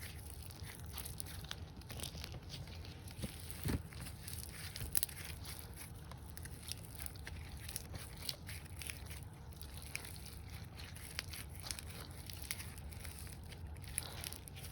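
Stiff slime being squeezed and poked by hand, giving a steady run of irregular small clicks and pops, with a few louder pops about four and five seconds in and near the end.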